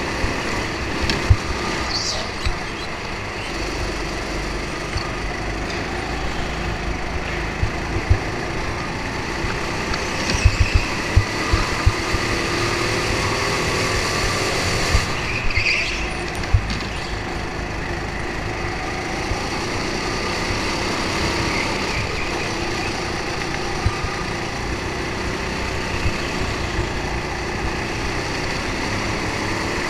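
Go-kart engine running under load as the kart laps the track, heard from onboard, its pitch rising and falling with the throttle through the corners. Occasional short low thumps, several of them close together around ten to twelve seconds in.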